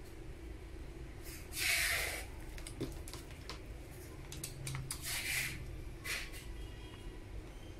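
Handling sounds from a screwdriver working inside an opened corded impact drill's plastic housing: scattered light clicks and taps of metal on plastic and parts. Two short hisses, about two and five seconds in, are the loudest sounds.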